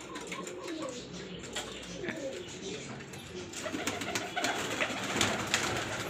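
Several domestic pigeons cooing, their curving calls overlapping one after another, with scattered sharp taps and clicks that grow louder near the end.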